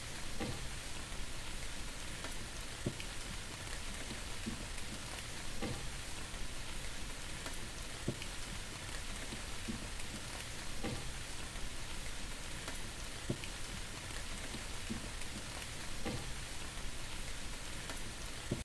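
A steady rain-like hiss with soft clicks like drops every second or two, cutting off abruptly at the end.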